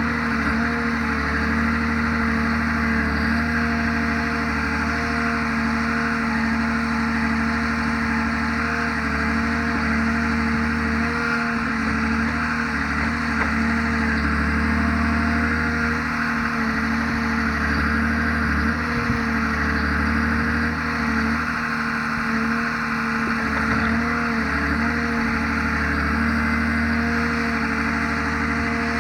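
Timber forwarder's diesel engine running steadily under load, its pitch wavering slightly as the machine works through unloading.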